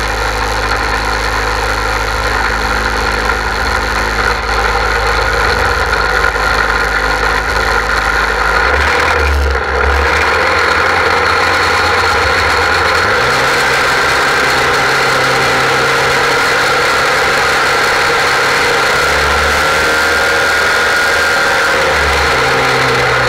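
Portable fire pump's engine running hard and steadily, pumping water out through the laid attack hoses; its note shifts about nine seconds in and again about thirteen seconds in as the pump takes up the load.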